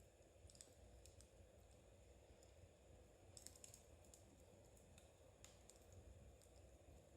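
Faint, irregular clicking of metal knitting needles working fuzzy yarn, with a small run of clicks about three and a half seconds in, over a quiet low background.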